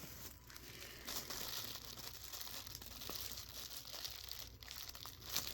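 Packaging being handled: steady crinkling and rustling with small crackles as the kit's wrapping is handled.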